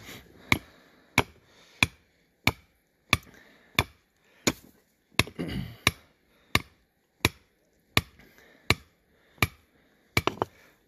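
Hand hammer pounding a survey corner stake into rocky ground: sharp, evenly spaced strikes, about one and a half a second.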